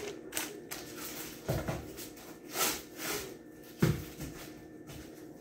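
Handling noises: a few brief rustles of a plastic zip-top bag and a couple of dull thumps, the sharpest about four seconds in.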